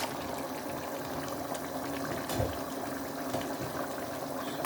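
Pot of Ofada stew simmering on the fire, a steady bubbling hiss, with a soft knock about two and a half seconds in.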